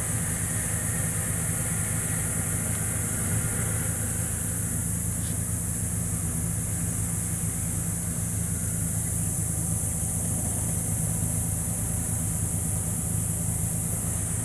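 A steady low engine hum, like a vehicle idling, with a constant high hiss over it.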